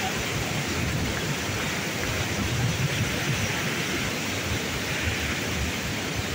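Steady rush of whitewater from the Una river's rapids and waterfall.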